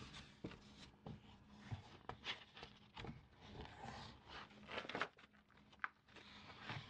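Soft, irregular scratching and tracing strokes on the paper of an old calendar page, with a few light taps among them.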